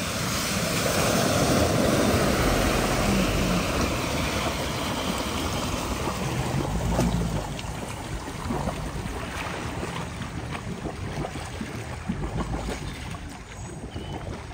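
A vehicle driving through deep floodwater, the water rushing and surging around it, louder over the first half, then easing to lighter splashing and lapping.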